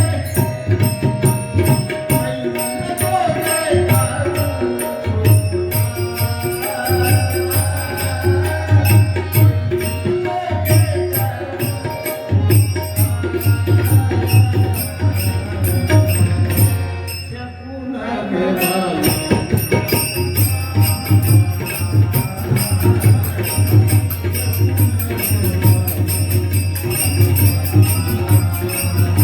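Marathi devotional kirtan music with drums and percussion playing steadily. It briefly drops away about eighteen seconds in, then carries on.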